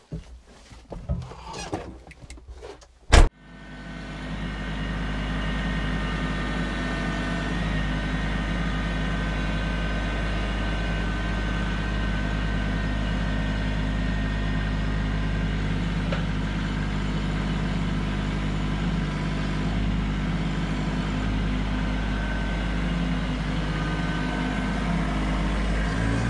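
Kubota LX2610 compact tractor: the cab door bangs shut about three seconds in, then the tractor's three-cylinder diesel starts and settles into a steady run.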